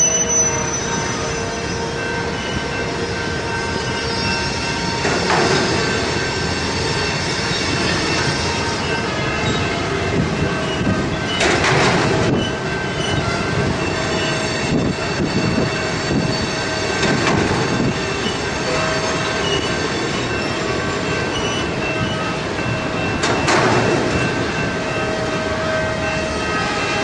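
Steel wheels of a slow-moving train of loaded rail flatcars rolling past, rumbling, with thin steady squealing tones from the wheels. Three louder clatters stand out, about five seconds in, near the middle, and near the end.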